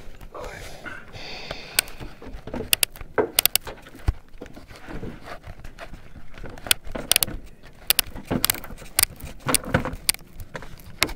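Irregular sharp clicks, taps and light clattering of small hard objects being handled, coming in scattered clusters.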